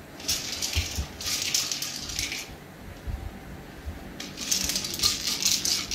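Dog playing with a small toy on a rug: two bursts of rattling and scuffling, the first running about two seconds, then a pause, then another starting a little after four seconds in.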